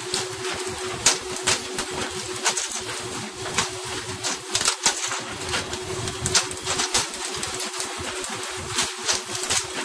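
Fishing-boat deck during pole-and-line tuna fishing: a steady engine hum under rushing water spray, with frequent irregular sharp slaps and clicks of tuna landing and flapping on the deck.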